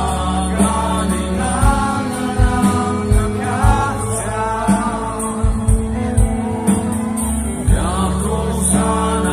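A live band playing through a concert PA, heard from among the crowd. A singer carries a melody over sustained bass and a steady drum beat.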